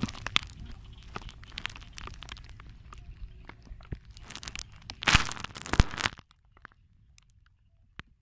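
Wind buffeting a phone microphone: a steady low rumble with scattered crackles and clicks, and a loud gusty rush about five seconds in. It cuts off suddenly about six seconds in, leaving near silence with a few faint clicks.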